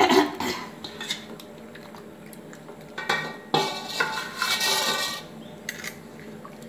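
A hand stirring and swishing raw potato slices soaking in water in a steel bowl, with splashing and clinks against the bowl. It is loudest right at the start and for about a second and a half in the middle.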